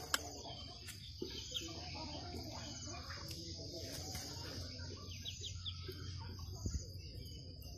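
Young chicken giving a few short, high cheeps about five seconds in, over a steady high-pitched background hum.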